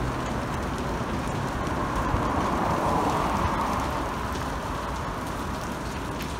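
A large fire in a golf cart shed burning with a steady crackle, while a car passes on the road, loudest around three seconds in.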